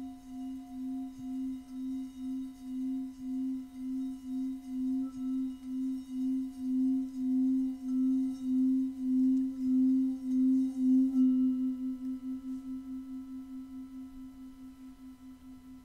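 Singing bowl being rubbed around its rim, its low hum swelling with a slow wobbling beat. About eleven seconds in the rubbing stops and the bowl rings on alone, the beat quickening as it fades away.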